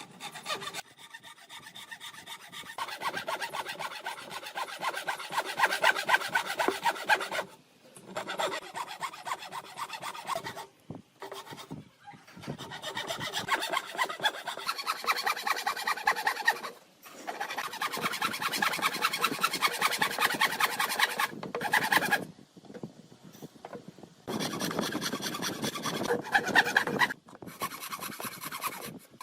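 A tool scraping or abrading wood in runs of quick, even strokes, broken by short pauses every few seconds.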